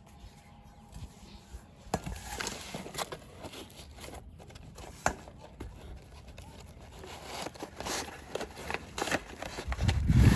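Packaging being handled and opened: crinkling and tearing with scattered clicks and knocks, and a louder thump near the end.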